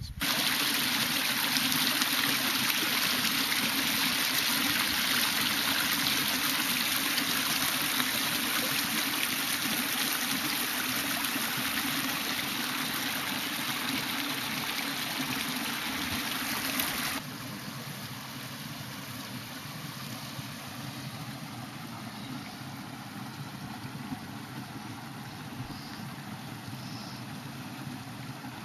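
Steady rushing water. It drops suddenly to a quieter rush about two-thirds of the way through and carries on.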